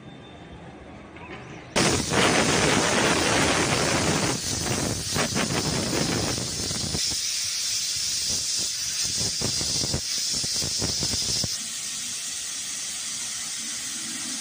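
Pressure cooker whistling: steam forcing out past the weight valve in a loud hiss that starts suddenly about two seconds in, flutters through the middle and eases somewhat near the end. This is pressure venting once the cooker is up to pressure, the whistle counted to time the cooking.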